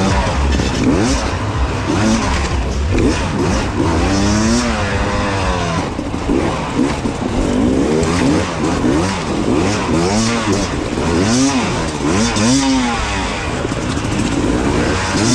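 Two-stroke enduro motorcycle engine revving up and dropping back over and over, about once a second, as the bike is worked through technical terrain.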